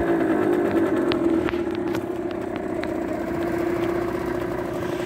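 Aprilia SR 50 Motard scooter's 50 cc engine idling steadily, with a few faint clicks in the first few seconds.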